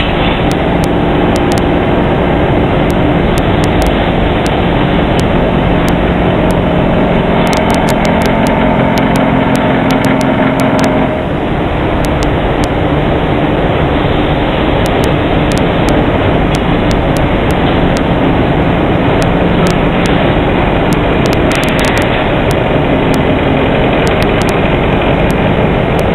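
Leaf spring eye milling machine running: a loud, steady machinery drone with several held tones, easing briefly about eleven seconds in, with scattered sharp clicks.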